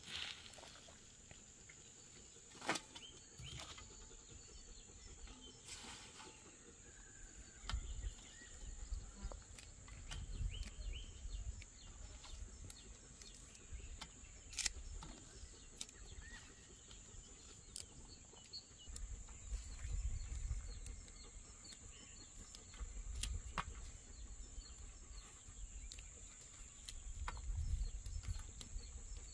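Quiet rural outdoor ambience: a steady high insect trill, low wind rumble on the microphone in gusts now and then, and a few sharp clicks and soft rustles from fresh herbs being handled.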